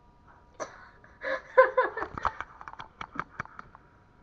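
A short, breathy burst of a person's voice close to the microphone, followed by a quick run of sharp clicks. A faint steady electrical whine from the webcam's microphone sits underneath.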